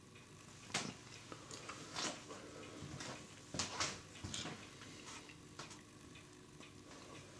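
Faint, irregular clicks and taps, about half a dozen and unevenly spaced, over a low room hum, like handling noise.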